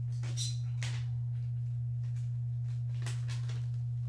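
A steady low hum, with a few brief scrapes and clicks of hard plastic card cases being handled and set down on a table: about half a second in, near one second and around three seconds.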